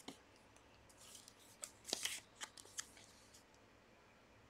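Quiet handling of a trading card and a clear plastic card holder: soft rustling with a few small sharp clicks in the middle, as the card is slid into the holder.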